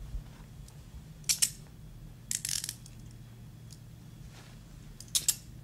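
Handcuffs ratcheting shut on a person's wrists: three short bursts of ratchet clicks, about a second and a half in, around two and a half seconds, and near the end.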